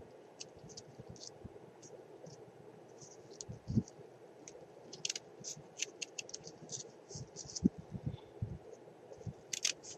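Small scissors snipping as they trim the leaf on a handmade burlap flower: a series of short, quiet snips, sparse at first and coming more often in the second half, with a soft bump a few seconds in.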